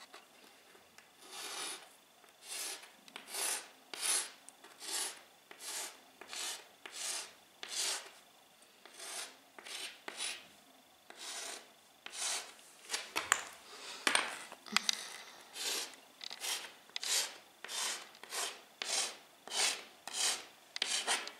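A hard chalky lump scratching letters into a dusty bare floor, a stroke at a time: a rasping scrape about one and a half times a second, starting about a second in.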